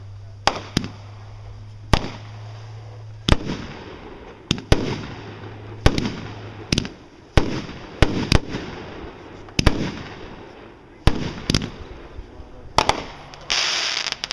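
Fireworks going off in a rapid series of sharp reports, roughly one a second, many trailing off with a crackle or echo. Near the end comes a short, dense hissing burst.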